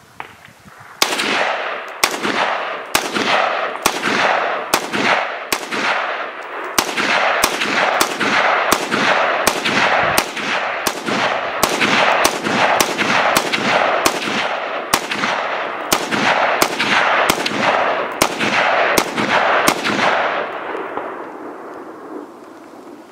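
AR-15-style rifle in .223 firing a long string of about thirty rapid semi-automatic shots at a steady pace of roughly two a second, each with a ringing echo behind it. The firing stops about three seconds before the end.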